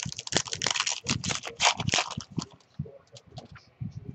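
A baseball card pack wrapper being torn open and crinkled for about two seconds, then the cards handled and shuffled with light clicks and taps.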